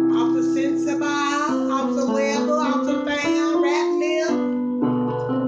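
A woman singing gospel and accompanying herself on an electronic keyboard, with held chords that change every second or so under her voice.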